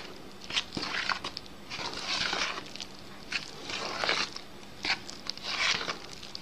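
A metal fork scraping and stirring through flour in a plastic bowl, in short strokes about once a second, as the wet ingredients are worked into the dry mix for bread dough.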